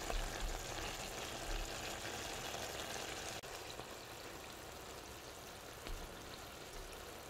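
Beef kidneys in an oily tomato sauce simmering in a pot over low heat, a steady soft crackling sizzle. It drops a little quieter about three and a half seconds in.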